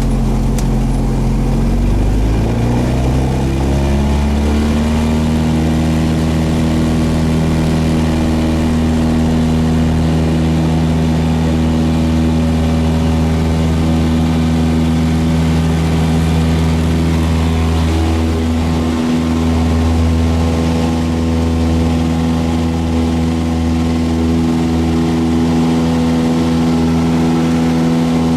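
Cessna 172's piston engine and propeller being brought up to takeoff power: a couple of seconds in, the engine's pitch rises over about three seconds, then holds steady at full power.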